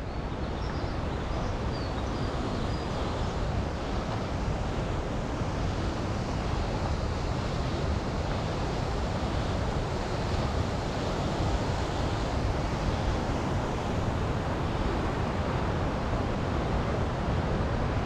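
Steady rushing noise of a mountain stream or waterfall, with no breaks or distinct events.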